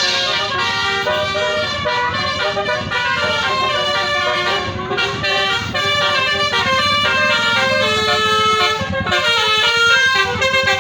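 Basuri telolet horn on a bus playing a continuous melodic tune, its notes changing quickly, with several tones sounding at once.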